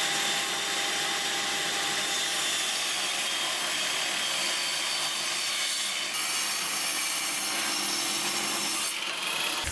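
Table saw running and cutting a hardwood board: a steady, loud sawing noise with the faint whine of the blade and motor.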